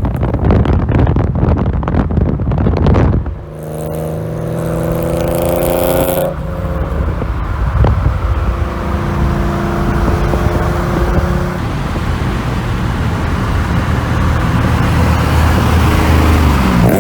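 A car on the move: low rumble with wind buffeting on the microphone, then an abrupt change to a car engine's steady drone. The drone rises slightly in pitch about four to six seconds in and then holds level.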